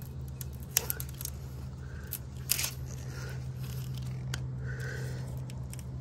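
Spline roller pressing the spline and fibreglass mesh into a metal window-screen frame channel: a run of sharp clicks and crackles, the two loudest about a second in and about halfway through, over a steady low hum.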